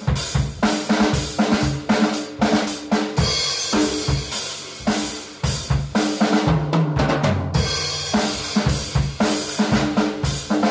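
A drum kit played with a pair of Paiste Alpha 14-inch Rock hi-hats, the kick and snare hitting several times a second under the cymbals. About two thirds of the way through, a fill on the toms steps down in pitch.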